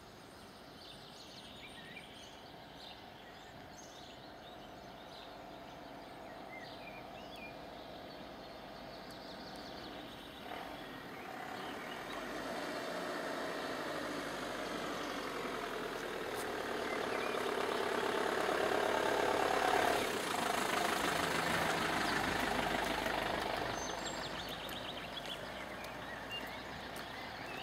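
A motor vehicle approaching and passing: its engine and tyre noise rise slowly, are loudest about twenty seconds in, then fade. A few bird chirps sound faintly near the start.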